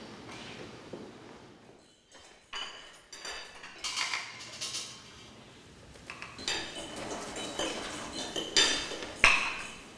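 Plates and serving utensils clinking and scraping as food is dished out at a buffet counter: a string of sharp clinks starting about two and a half seconds in, the loudest one near the end.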